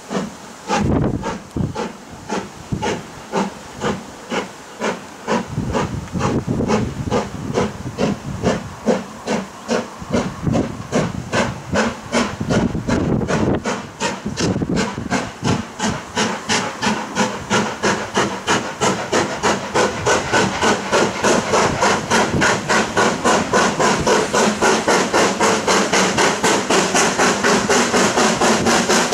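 LMS Black Five 4-6-0 No. 45379 pulling away under steam: its exhaust beats get steadily quicker, from about one or two a second to three or four a second, with steam hissing between them. The sound grows louder as the locomotive comes closer.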